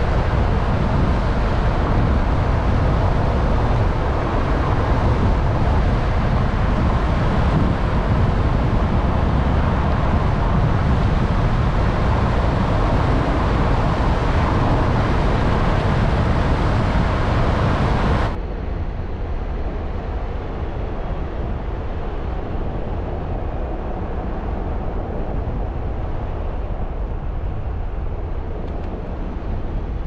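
Steady driving noise from a moving car: tyre rumble and wind. A little past halfway it suddenly drops quieter and loses its high hiss.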